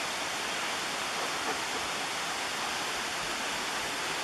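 A creek rushing steadily: an even hiss of flowing water with no breaks.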